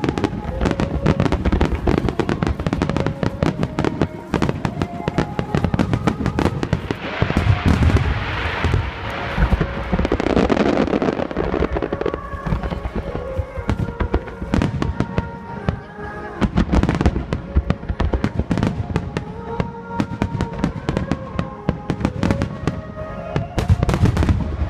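Aerial fireworks shells bursting in dense, irregular succession, with a thick wash of crackling partway through, over a song with long held notes playing on loudspeakers.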